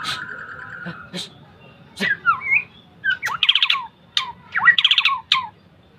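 Borneo shama (murai Borneo) singing: a held whistle at the start, then varied gliding whistles and two harsh, rapidly pulsed rattling phrases in the second half.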